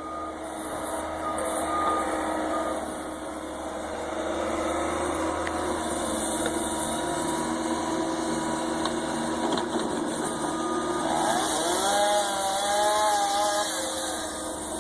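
A small engine running steadily, with a wavering whine that rises in pitch about eleven seconds in and lasts a few seconds.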